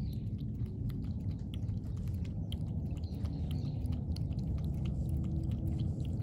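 A cat chewing and crunching its food, many quick small clicks of eating over a steady low background rumble.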